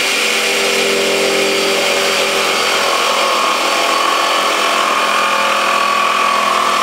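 Milwaukee cordless jigsaw running steadily as its blade makes a straight cut through a plywood board.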